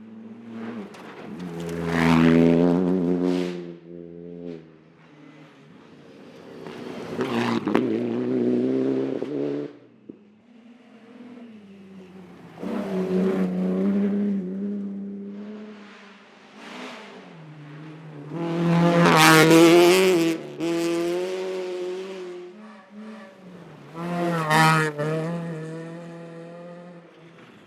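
Rally car engines revving hard on a gravel stage, in five loud swells a few seconds apart with quieter gaps between. The pitch jumps with each gear change, and gravel noise is strongest in the loudest swell, about two-thirds of the way through.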